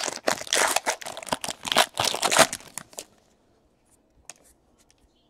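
Plastic trading-card pack wrapper crinkling and tearing as the pack is opened by hand, a dense crackle that stops about three seconds in, leaving only a few faint ticks.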